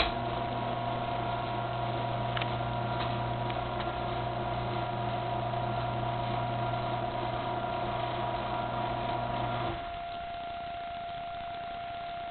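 Craftsman 1/2-horsepower belt-drive garage door opener opening the door. A click at the start, then its motor runs with a steady hum and stops abruptly nearly ten seconds in.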